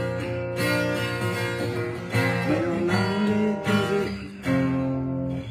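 Acoustic guitar being strummed, chords ringing between a few strokes, with a last stroke about four and a half seconds in left to ring.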